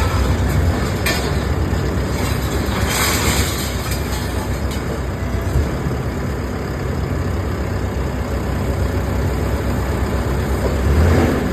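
Heavy construction vehicle's engine running steadily with a low rumble and a dense noisy wash over it, broken by short hisses about one and three seconds in, and swelling louder near the end.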